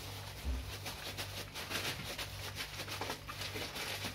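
Faint crinkling and soft taps of a plastic bag being worked over sweet mixture in a steel plate, over a steady low electrical hum.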